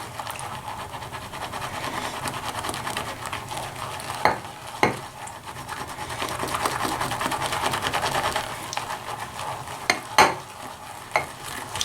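A shaving brush whipping soft shaving soap into lather in a bowl: a steady, rapid wet swishing and churning as the lather builds toward peaks. Three sharp knocks come about four seconds in, just under five seconds in, and about ten seconds in.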